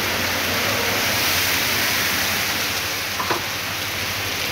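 Heavy rain pouring down onto a flooded street: a dense, steady hiss of downpour and running water.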